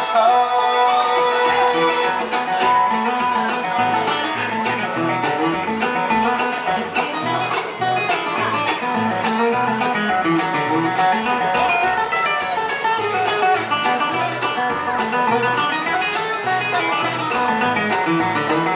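A live bluegrass band playing banjo, acoustic guitar and fiddle together, with a steady, busy picking rhythm.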